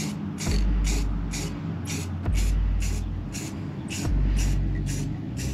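Background music with a steady beat: a short ticking hi-hat about four times a second over a deep bass line that changes note every second or two.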